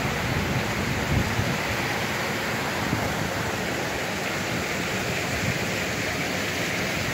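Wind blowing across the phone's microphone during a snowfall: a steady rushing noise, heaviest at the low end.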